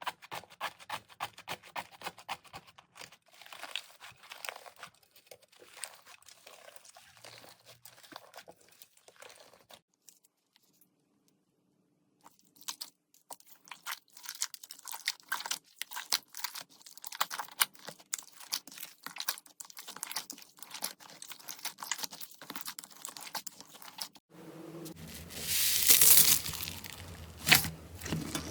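Slime being squeezed and worked by hand, giving dense crackling and crunching clicks. The clicks stop for about two seconds partway through. Near the end comes a louder stretch with a rushing, crinkly noise.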